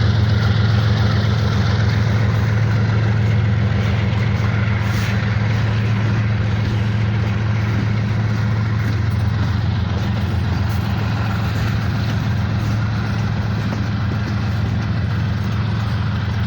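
Union Pacific diesel-electric freight locomotives running with a steady, loud low drone, the engine note holding constant under broad rumbling noise.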